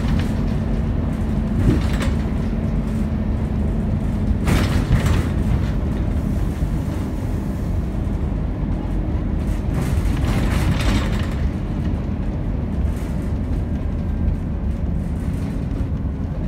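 Inside a Scania N270UD double-decker bus under way: the five-cylinder diesel engine and road rumble run steadily, with two brief swells of hissing noise, about four and ten seconds in.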